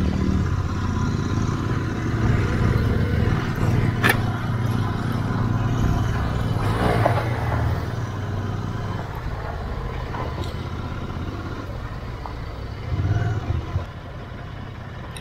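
Royal Enfield Interceptor 650's parallel-twin engine running steadily while riding, with a sharp click about four seconds in and the engine note easing off near the end.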